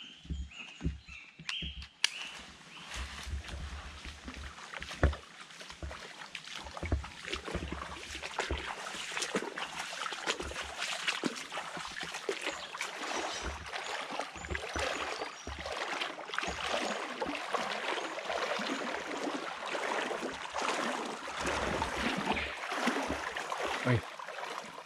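Someone wading along a shallow, sandy creek: irregular water splashing and sloshing around the legs with each step. There is a sharp knock about two seconds in and another about five seconds in.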